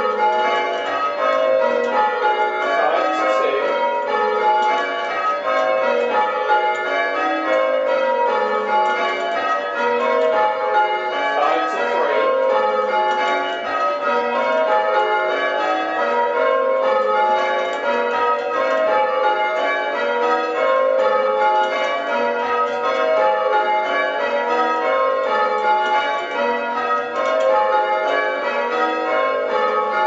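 A ring of six church bells being rung full-circle by hand in steady, even succession, one bell after another. The tenor weighs 7-3-5 cwt in A-flat, the back five were cast in 1815 by William Dobson and the treble in 1870 by John Warner & Sons.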